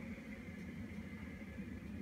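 Nortec (Primus P6) commercial front-loading washing machine running during a 95 °C boil-wash programme: a steady low hum with no distinct knocks.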